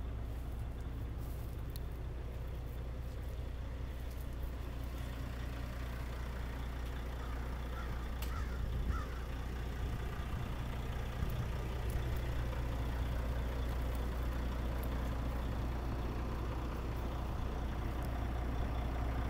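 John Deere 210C tractor loader's diesel engine idling steadily. A bird calls briefly about eight seconds in.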